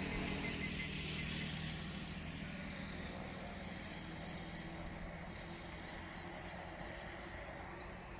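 Steady low hum of a distant motor vehicle's engine, slowly fading, over open-air background noise, with a few faint high chirps.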